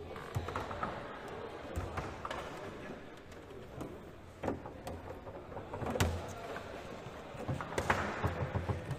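Table football in play on a Leonhart table: irregular sharp clacks of the ball being struck by the rod figures and the rods knocking. There is a louder hit about six seconds in and a quick flurry of clacks near the end.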